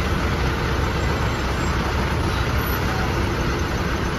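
Truck engine running with a steady low rumble, heard from inside the cab.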